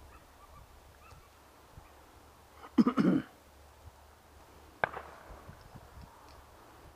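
Shotguns firing: a quick pair of shots about three seconds in, then a fainter single shot about two seconds later.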